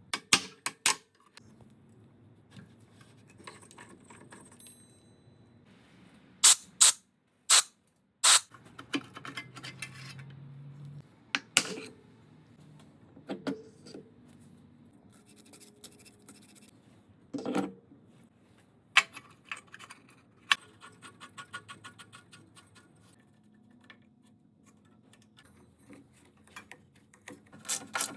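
Hand tools and small metal parts being handled during small-engine repair work: scattered sharp clicks, clinks and knocks, several in quick succession, with quieter scraping and rustling between them. No engine is running.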